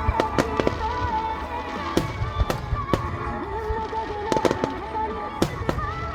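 Fireworks shells bursting in an irregular series of sharp bangs, about a dozen over six seconds, with music playing underneath.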